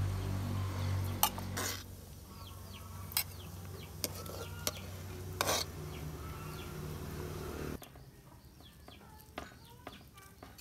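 Metal ladle clinking and scraping against a metal pot and bowl as boiled fish is lifted out of the broth, with scattered sharp clinks. Under it runs a steady low hum that cuts off suddenly about eight seconds in, and birds chirp in the background.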